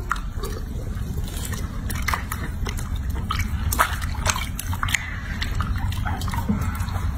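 Water sloshing and splashing in a sink as hands wash and rub a baby monkey's wet fur: scattered small splashes, drips and wet squelches over a steady low rumble.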